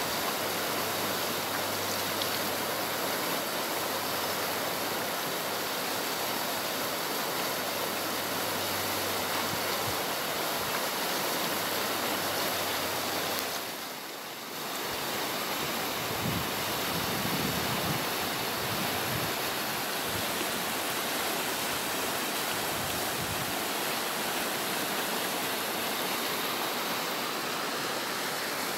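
Swollen, fast-flowing muddy river rushing steadily, with a brief dip in level about halfway through.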